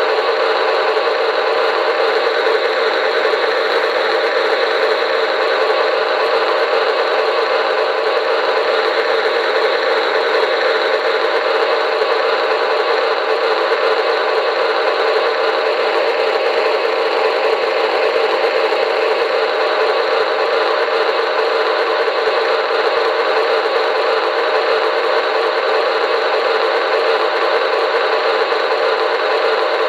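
Diesel locomotive engine sound effect from a QSI Maxx Traxx model-train sound unit, played through a small speaker: a steady, even running drone with no deep bass.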